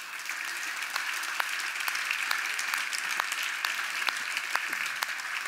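Audience applauding with many hands clapping; the applause builds over the first second, then holds steady.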